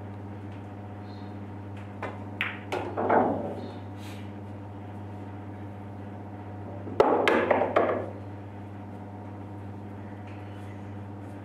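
Pool shot: the cue tip strikes the cue ball and the balls clack together, a quick series of sharp knocks about two seconds in. About seven seconds in comes a louder sudden knock followed by a second of rattling clatter, the loudest sound here.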